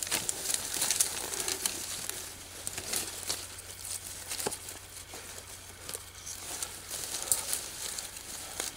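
Dry leaves and brush crackling and rustling, with many small scattered clicks, as a deer carcass's head is handled and cut at the neck with a knife.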